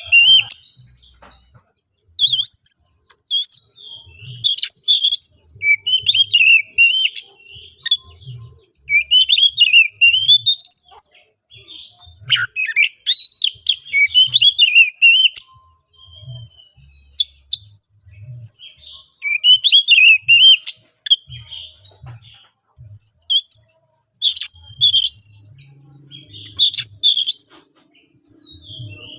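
Oriental magpie-robin (Kacer) singing loudly in repeated bursts of varied, rapid whistles and harsh chattering notes, with short pauses between phrases. It is an agitated, full-on challenge song of the kind used to provoke rival magpie-robins into answering.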